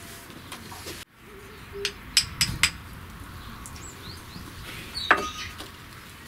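A few sharp clicks and knocks, clustered about two seconds in and once more near five seconds, with short high bird chirps from the garden between them.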